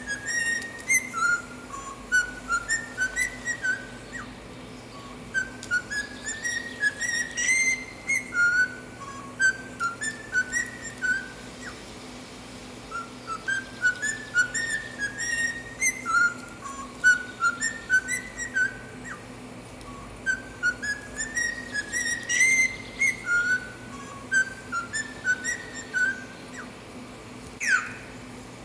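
Cockatiel whistling a tune in short clear notes with rising runs, the same phrase twice over. Near the end come a couple of quick sweeping whistles. A faint steady hum sits underneath.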